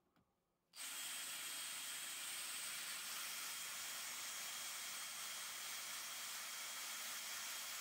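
Cordless drill running at a steady speed, spinning a Yamaha outboard oil injection pump's drive shaft to bench-test that the pump delivers oil. It is heard as an even hiss with a faint high whine, starting about a second in.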